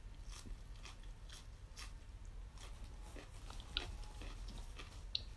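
Close-up biting and chewing of a raw sawi (mustard green) leaf: faint, irregular crunches, several a second, over a low steady hum.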